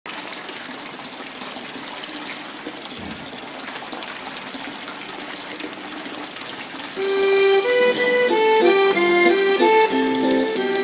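Wet cloth scrubbed by hand on the stone edge of a washing trough, with water splashing. About seven seconds in, instrumental music starts, a melody of held notes, louder than the washing.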